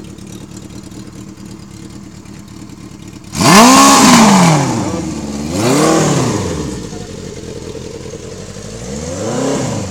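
1979 Honda CB650's air-cooled inline-four idling, then blipped by hand three times: a sharp rev about three seconds in, a smaller one a couple of seconds later and another near the end, each falling straight back to idle.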